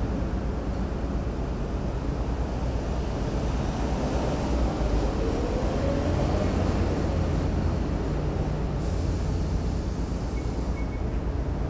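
Steady low outdoor rumble, with a faint tone rising in pitch around the middle.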